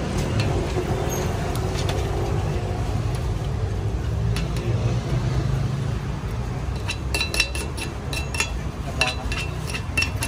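Steady low street-traffic rumble, and from about seven seconds in a quick run of light metallic clinks: a metal spoon knocking against the cast-iron khanom krok pan and the steel trays as the coconut rice pancakes are scooped out.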